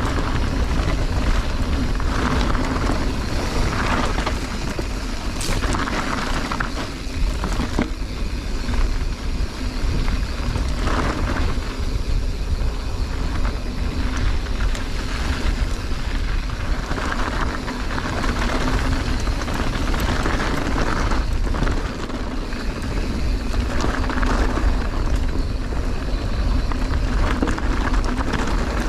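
Wind rumbling over an action camera's microphone as a mountain bike rolls fast down a loose dirt and gravel singletrack, with tyre crunch and rattles and clicks from the bike over rough ground.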